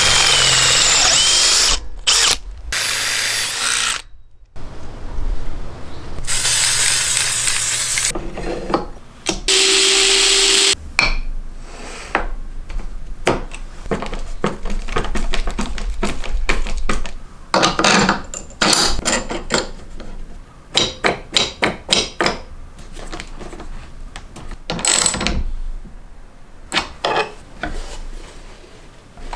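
Electric drill boring through a steel angle iron clamped in a bench vise, in several short runs, the loudest sound. It is followed by a long string of small clicks and scrapes as screws are driven by hand with a screwdriver.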